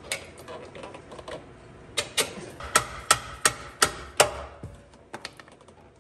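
A red mallet knocks the last four-link suspension link into its mount under the truck. There are seven sharp strikes about a third of a second apart, each with a short metallic ring, then two lighter taps near the end.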